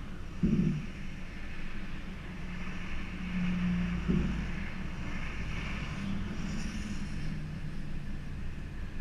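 Holden VR's engine and exhaust running, a steady low drone with two short louder surges, about half a second in and again about four seconds in. The exhaust note is the one the owner reports as a problem under acceleration.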